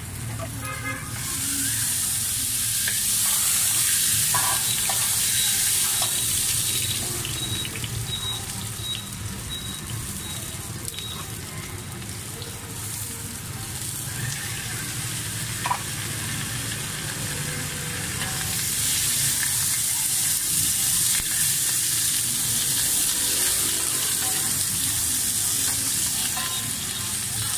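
Cubes of rice-flour cake (bột chiên) sizzling as they fry in oil on a street-stall pan, with a few light clicks of the spatula. The sizzle is loud for the first several seconds, eases off in the middle, then rises again about two-thirds of the way through.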